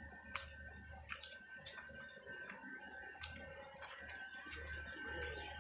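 Faint footsteps on wet paving: irregular sharp clicks and taps, some a little under a second apart, over a faint steady high-pitched tone.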